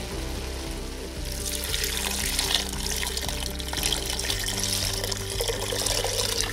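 Chicken stock poured from a glass bowl into a pot, splashing onto shredded chicken, starting about a second in and running steadily. Soft background music plays underneath.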